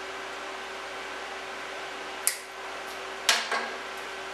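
Steady hum of a Kemppi MIG welder idling with its fan running, broken by three short sharp noises that fade quickly: one about two seconds in and two close together about three seconds in.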